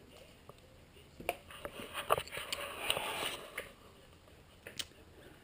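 Camera handling and movement noise: scattered light clicks and knocks with some rustling, starting about a second in and dying away before four seconds, then one more click near the end.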